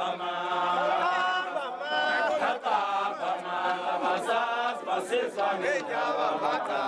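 A group of Zulu men chanting together in many overlapping voices, some holding long notes while others call out over them.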